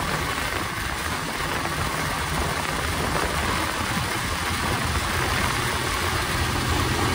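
Motorcycle engine running steadily under way, with a strong rush of wind over the microphone and road noise.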